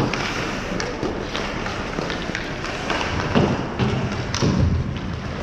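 Ice hockey play heard from the boards: sharp stick and puck clicks over a steady rink hiss, then several dull thuds against the boards about three and a half to five seconds in.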